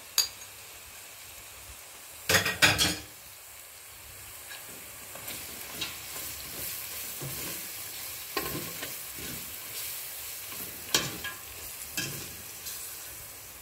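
Onions and spices frying in hot oil in a stainless steel pot, a steady sizzle as fresh masala powder cooks in, while a steel spoon stirs and scrapes against the pot. A loud metal clatter about two seconds in, and a few sharper knocks of the spoon on the pot later.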